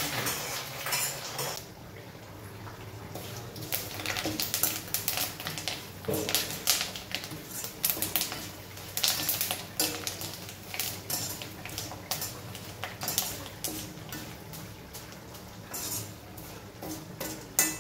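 Steel spatula scraping and clinking against a steel kadai in irregular strokes, stirring curry leaves frying in oil.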